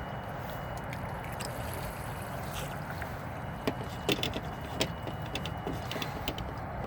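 Steady water and wind noise around a small fishing boat, with a few scattered light knocks and clicks of gear being handled in the boat.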